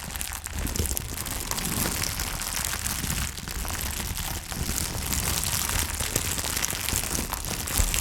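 Plastic bag crinkled and crumpled close to a Blue Yeti microphone, a steady dense crackle of fine ticks made to imitate a fire crackling.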